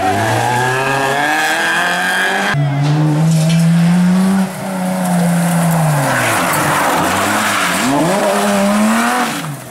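Rally car engines at a hairpin. First one car's engine revs as it pulls away. Then, after an abrupt change, a BMW E30 rally car's engine rises and falls as it brakes into the bend, its tyres skid through the hairpin on the loose, gravelly surface, and the engine revs again as it powers out.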